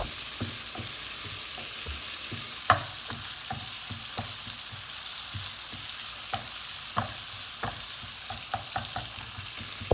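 Onion, tomato and spice paste sizzling in hot oil in a pan while it is stirred, with the spoon knocking and scraping against the pan now and then; the loudest knock comes about three seconds in.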